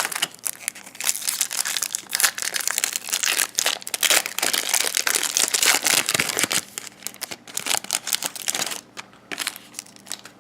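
Wrapper of a Topps baseball card pack being torn open and crumpled: a dense, loud crinkling that dies down near the end.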